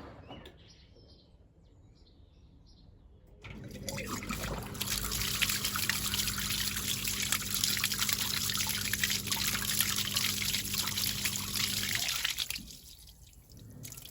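Watery liquid from a washing machine running out in a steady stream over a low steady hum, starting about three and a half seconds in and stopping about eight seconds later.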